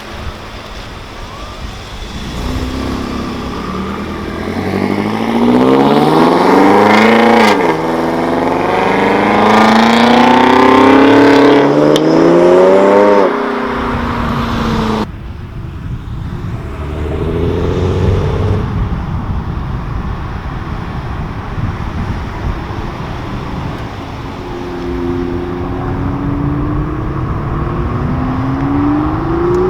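Sports car engine accelerating hard, loud and rising in pitch. The pitch drops sharply just after seven seconds in and climbs again. About fifteen seconds in the sound changes abruptly to a quieter engine that revs up a few more times.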